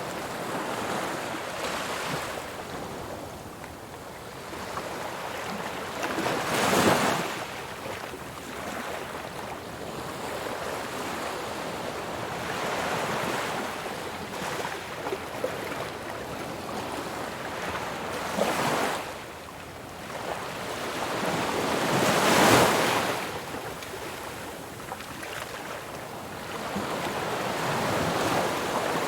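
Ocean waves washing in and breaking, a steady rush of surf that swells into louder crashes about a quarter of the way in and twice more in the last half.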